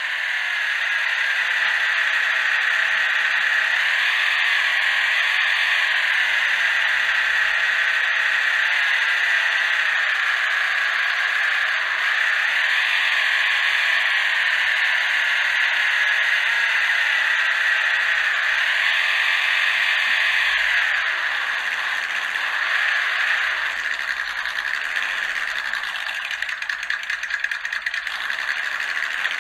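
Electric motor and gear drivetrain of a 1:32-scale Orlandoo Hunter RC crawler whining steadily, the pitch rising and falling several times with the throttle, over a rattle from the tyres on gravel. In the last several seconds it runs a little quieter and choppier.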